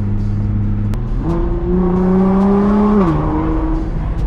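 Nissan R35 GT-R's twin-turbo V6 heard from inside the cabin: it runs steadily, then pulls up through the revs under acceleration for a little under two seconds, and drops in pitch at an upshift about three seconds in before running on steadily.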